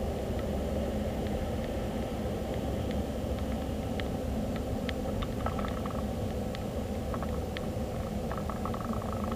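Car driving, heard from inside the cabin: a steady low rumble of road and engine noise, with scattered light clicks and ticks.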